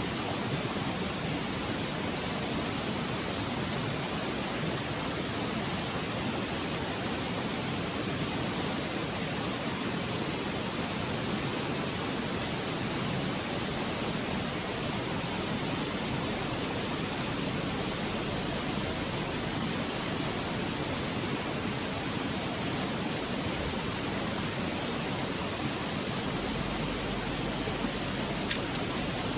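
Steady hiss of a Petromax HK500 pressure kerosene lantern burning, with a couple of faint clicks partway through and near the end.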